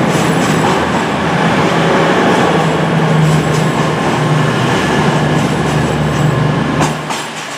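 East Midlands Trains Class 222 Meridian diesel multiple unit pulling out and passing close by, its underfloor diesel engines running under power with a steady low drone over the rumble of the moving train. The sound cuts off abruptly near the end.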